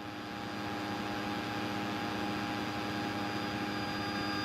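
Light aircraft's engine and propeller droning steadily in the cabin: an even hum with several held pitched tones over a rushing noise, rising a little in level over the first second or so.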